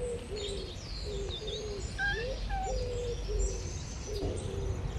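Dove cooing: a run of short, low, repeated notes, with small birds chirping higher up.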